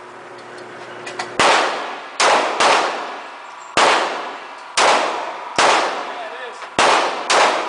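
Gunshots: about eight sharp reports at uneven spacing, some in quick pairs, each followed by a short ringing echo.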